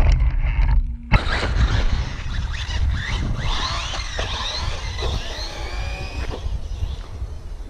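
Team Corally Kronos RC truggy's brushless electric motor whining, rising and falling in pitch again and again as it accelerates and lets off, heard from a distance over low wind rumble on the microphone. There is an abrupt break about a second in, and the whine fades somewhat near the end.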